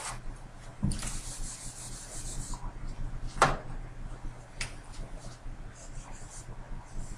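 Whiteboard eraser rubbing across the board, a hissing wipe about a second in that lasts about a second and a half. Two sharp clicks follow, then faint marker squeaks on the whiteboard near the end.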